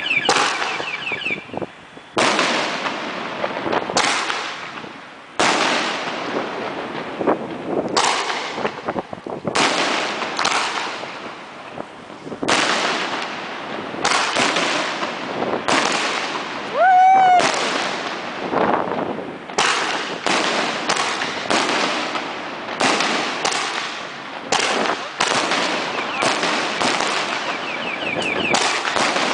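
Aerial fireworks bursting overhead in quick succession: a sharp bang every second or so, each trailing off in a crackling hiss of falling sparks. Fast crackling comes near the start and again near the end, and a short gliding pitched sound rises and falls about 17 seconds in.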